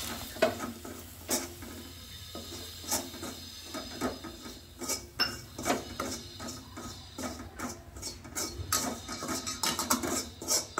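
A spoon stirring gram flour roasting in ghee in a kadai, with irregular scrapes and knocks against the pan a few times a second, coming more often near the end.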